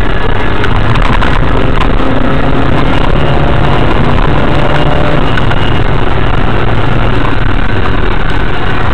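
Car engine and road noise heard from inside the cabin through a dashcam microphone, a steady, loud, deep drone as the car pulls uphill.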